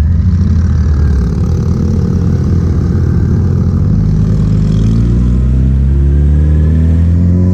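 Loud engine exhaust of a vehicle. It falls off briefly, then from a few seconds in the engine note climbs steadily as the vehicle accelerates.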